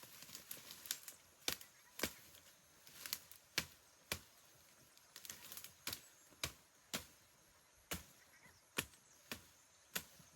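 A hand blade chopping brush in repeated sharp strokes, about one or two a second at an uneven pace.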